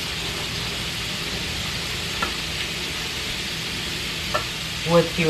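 Battered chicken pieces frying in hot oil, a steady sizzle, with a couple of faint light ticks.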